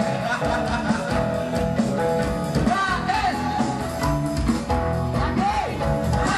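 Music with singing over a steady drum beat.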